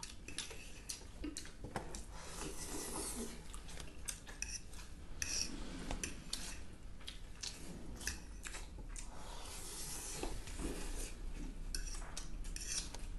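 Metal forks clinking and scraping against ceramic plates while noodles are eaten, in many short, irregular clicks.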